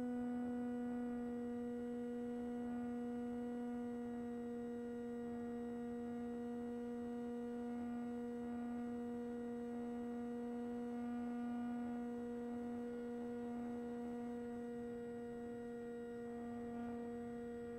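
Electric motor and propeller of a Skysurfer RC glider running at steady throttle, picked up by the plane's onboard camera microphone: a steady hum with overtones that dips slightly in pitch at the start and then holds even.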